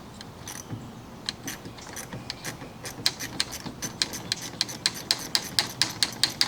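Ratchet wrench clicking as it loosens the nut on the battery's ground cable terminal: scattered clicks at first, then a quick, even run of several clicks a second from about halfway, growing louder toward the end.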